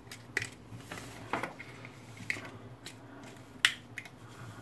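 Plastic clicks and knocks of a camera cage being fitted by hand onto a small flexible tripod's ball-head mount: about five separate clicks, the sharpest about three and a half seconds in.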